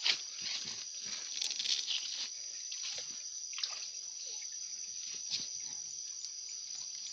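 Water sloshing and dripping with scattered small splashes, over a steady high-pitched insect drone.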